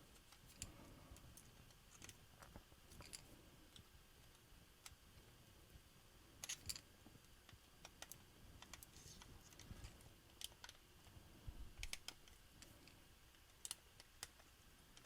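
Near silence broken by faint, irregular small clicks and taps as small parts and wires of an HO model locomotive are handled. A few slightly clearer clicks come about halfway through and near the end.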